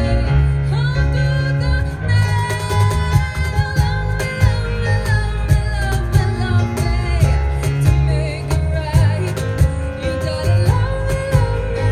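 Live band music: a woman singing a pop song over a plucked upright double bass, with a regular percussive beat.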